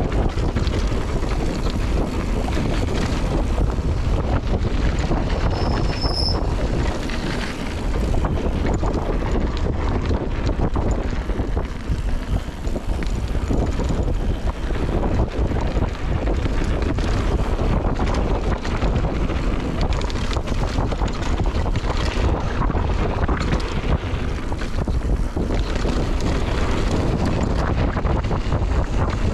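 Wind buffeting a GoPro action camera's microphone on a mountain bike descent, over the rolling and rattling of the bike on a dirt trail. A brief high squeak sounds about six seconds in.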